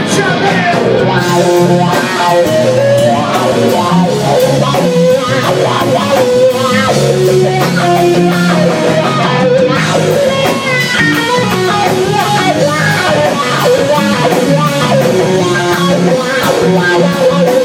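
Live rock band playing loud: amplified electric guitar lines over bass guitar and a drum kit.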